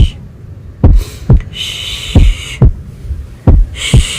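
Slow heartbeat sound, deep thumps in lub-dub pairs about every 1.3 seconds, with a voice shushing twice over it.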